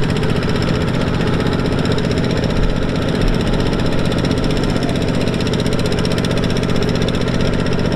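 Single-cylinder Kubota diesel engine of a two-wheel walking tractor running steadily while it tows a loaded trailer, a fast, even chugging.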